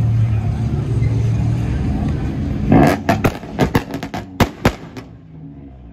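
Honda Prelude's engine running steadily as the car pulls away, then a rapid string of about ten sharp exhaust pops and bangs over two seconds before the sound fades.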